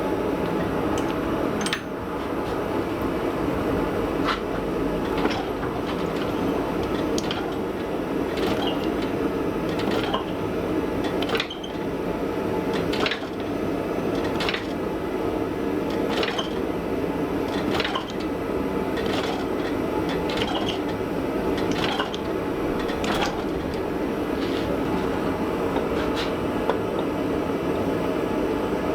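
A blacksmith's forge running with a steady roar that starts abruptly as it is lit, with light clicks about every second or so.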